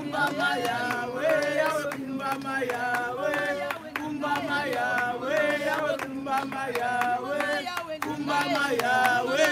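A group of women singing a praise and worship hymn together, with hand clapping.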